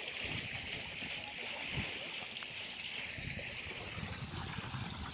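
Water running and splashing steadily in a garden fountain's tiled channel and pool, as a constant hiss-like rush, with an uneven low rumble underneath.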